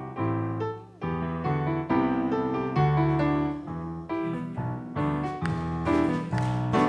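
Keyboard piano playing chords: the instrumental introduction to a worship song.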